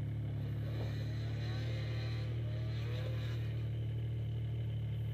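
Snowmobile engine running at a steady speed, heard close from the machine the camera rides on, a constant low drone that cuts off suddenly at the end.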